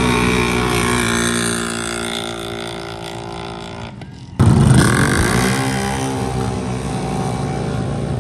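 ATV engine at full throttle racing down a dirt drag strip, its note holding steady and then fading away over about four seconds. Then there is an abrupt switch to another loud ATV engine, whose pitch drops quickly before it settles into a steady run.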